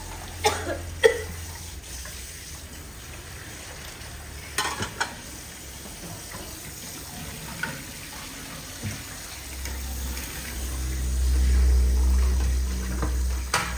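Tap water running into a plastic basin in a sink during dishwashing, a steady hiss with a few sharp clinks and knocks of dishware in the first five seconds. A low rumble swells in the last few seconds.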